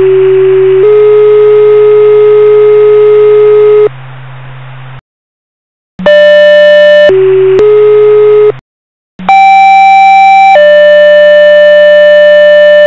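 Two-tone sequential radio paging tones from a Zetron paging encoder, the activation signal that triggers the tornado sirens' receivers. Three sets of steady, loud beep tones, each a short tone stepping to a longer one at a different pitch, with brief breaks of hiss or silence between them.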